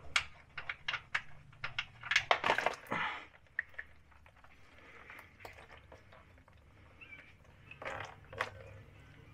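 Handling noise from hands working a plastic drain funnel and nitrile gloves: a quick run of clicks and rustles for the first three seconds. Then it goes quieter, with a short rustle again near the end.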